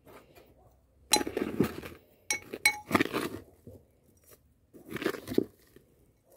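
A metal teaspoon scooping potting mix of soil and perlite and tipping it into a plastic pot: three gritty, crunchy pours, with two light clinks about two and a half seconds in.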